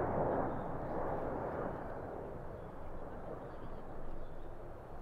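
Jet engine noise of a Boeing 777 airliner passing close by on landing approach: a broad rushing sound, loudest at the start and fading away over the next few seconds.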